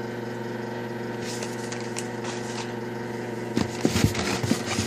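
Carded blister packs being handled: faint clicks, then louder knocks and rustling from about three and a half seconds in, over a steady low hum.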